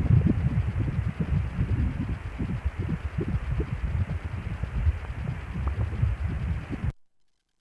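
Ultrasound machine's pulsed-wave Doppler audio: a fast, pulsing whoosh from the unborn baby's heartbeat and blood flow. It cuts off suddenly about seven seconds in, when the Doppler is switched off.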